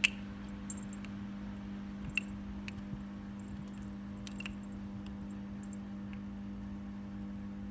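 A few light, sharp taps and clicks as a kitten bats at a dangling plastic bottle-cap toy, over a steady low hum.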